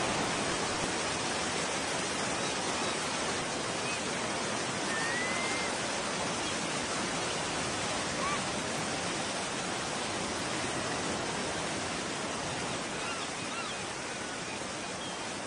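The long rushing tail of a bomb blast's rumble, a steady hiss like falling spray or heavy rain, slowly fading. A few faint high bird chirps sound through it.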